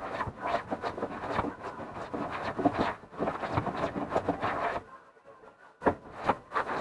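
Hand plane rasping along the edge of an oak board in a run of short strokes, jointing the edge for gluing. The planing stops after about five seconds, and a few sharp knocks follow near the end.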